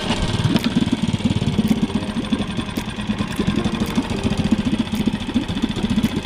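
Small Mercury outboard motor running steadily just after being pull-started, a fast even rattle of engine pulses.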